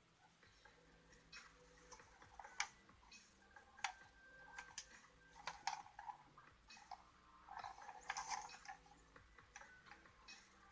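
Faint, irregular light clicks and taps from small hard objects being handled, several seconds apart, a little busier near the end.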